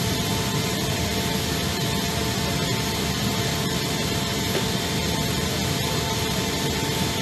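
Steady running noise of a jet turbine, even and unbroken, with several constant whining tones over a broad rushing roar.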